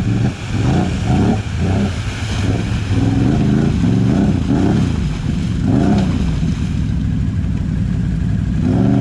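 Quad (ATV) engine revved up and down again and again as the quad churns through deep muddy water. The pitch rises and falls quickly in the first couple of seconds, then holds steadier before climbing again near the end.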